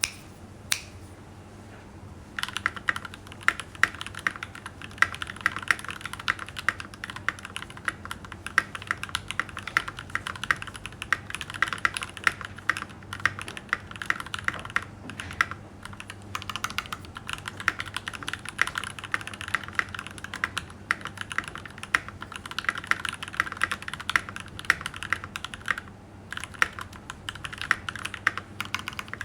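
Mikit GH96 Adventurer mechanical keyboard being typed on fast: a dense, continuous stream of keystroke clacks. It starts after a single key click and a short lull, and pauses briefly near the end.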